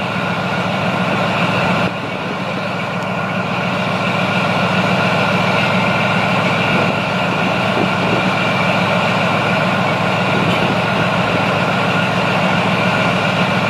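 Leopard 2SG main battle tank's V12 diesel engine running steadily while the tank stands still, with a steady high whine over the engine's rumble. The pitch holds level throughout and the loudness dips briefly about two seconds in, then builds slightly.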